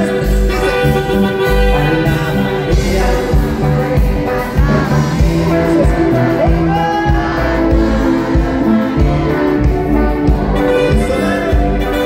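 A live band playing amplified music over a PA, with a heavy bass and drum beat and a singer's voice over it.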